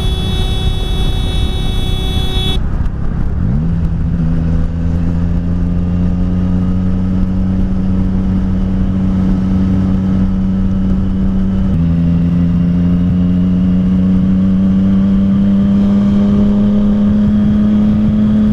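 A horn sounds steadily for about two and a half seconds. Then a Yamaha FZ-09's inline three-cylinder engine pulls under acceleration with wind rushing past, its pitch rising slowly, dropping once at an upshift about twelve seconds in, and rising again.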